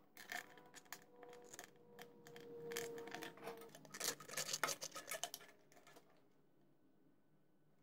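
A plastic fuel tank is handled while new rubber fuel line is fed through its port: faint scraping and clicking, with a thin tone held for about two seconds in the middle. It stops about six seconds in.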